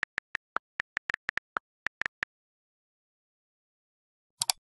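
Keyboard typing sound effect: a quick, uneven run of key clicks for about two seconds, then quiet. A double mouse click follows near the end.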